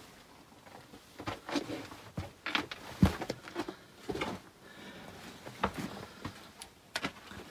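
Irregular footsteps and scuffs on the rocky floor of a lava-tube cave, with scattered knocks, the loudest about three seconds in.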